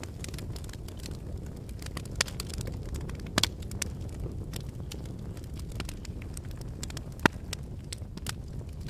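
Wood fire burning in a fireplace: a steady low rumble with frequent crackles and snaps, and a sharper pop about three and a half seconds in and another louder one near seven seconds.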